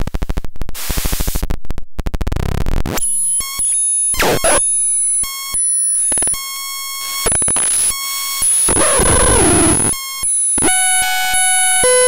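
VAPETRON SL20, a homemade patchable noise synthesizer, playing harsh electronic sound as its knobs are turned. It opens with a buzzy stream of rapid clicks for about three seconds, then becomes tones that jump abruptly from pitch to pitch under a thin high whine, broken by bursts of hiss.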